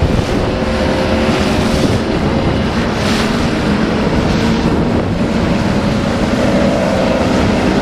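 Outboard motors of bass boats running at speed as they race past on the water, a steady engine hum mixed with hull and spray noise and wind buffeting the microphone.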